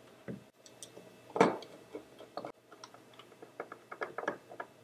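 Small clicks and ticks of hand work with wires and a screwdriver on the screw terminals of a solid-state relay. One louder scrape comes about a second and a half in, and a quick run of light ticks near the end.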